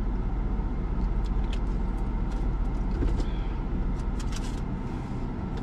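Steady low rumble of a car being driven, heard from inside the cabin, with a few faint light ticks.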